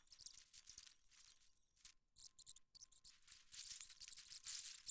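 Irregular high-pitched crackling and hiss, broken by short dropouts: garbled, corrupted audio in place of the programme sound.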